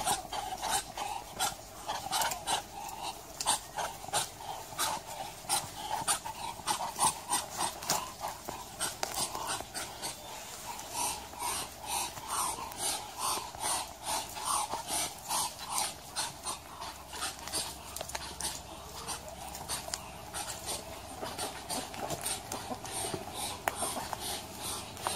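Muscovy ducks giving a long run of short breathy hisses, about two or three a second.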